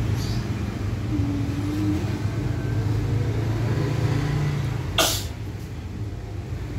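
Electric hair clipper buzzing steadily during a haircut, with one sharp click about five seconds in.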